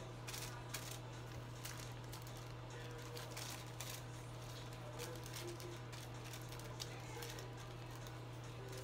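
Tint brush stroking hair colour onto a foil sheet, with faint foil crinkles and scattered soft ticks over a steady low hum.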